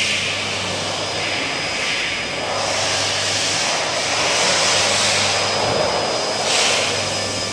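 A power tool running steadily with a rushing, airy hiss that swells and fades every couple of seconds, over a low hum.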